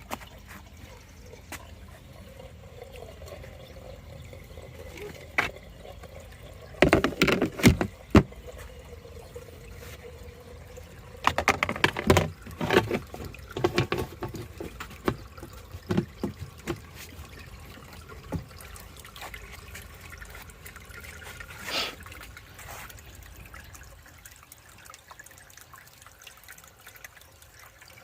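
Water trickling and splashing in an aquarium tank, with clusters of knocks and clatters about a quarter and halfway through and a few single knocks later on.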